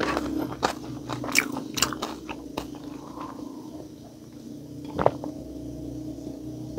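Close-up chewing of crispy pata (deep-fried pork knuckle), with a run of crisp crunches in the first couple of seconds. It then goes quieter while water is sipped from a glass, with one sharp click about five seconds in.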